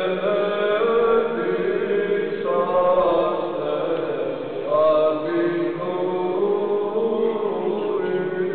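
Voices chanting slowly, with long held notes.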